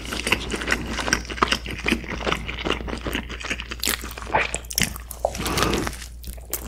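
Close-miked eating of a fried chicken burger: chewing full of small crackles and wet mouth clicks, with a fresh bite taken into the burger about two-thirds of the way through.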